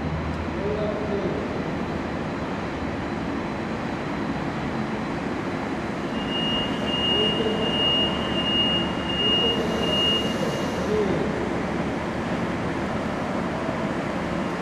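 Electric trolley bus creeping into an underground busway: a steady rumble with a faint whine that rises and falls as it moves. A thin, steady high tone sounds for a few seconds in the middle.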